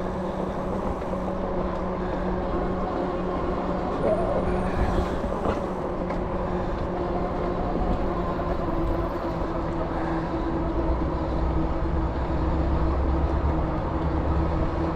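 Electric bike riding along: a steady hum from its VeeMoto e-Huntsman tires and drive over an even running noise, with a low rumble that grows near the end.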